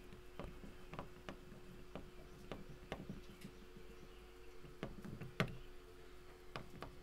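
Faint, irregular clicks and taps of a pen stylus on a tablet screen during handwriting, over a steady low electrical hum.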